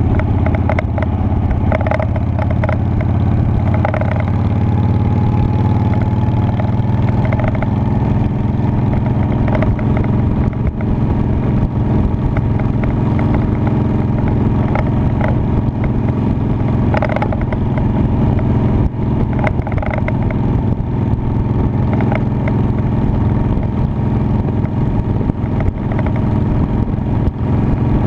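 Honda Shadow Spirit 750's V-twin engine running steadily as the motorcycle is ridden, a constant low engine note with a few brief knocks and rattles over it.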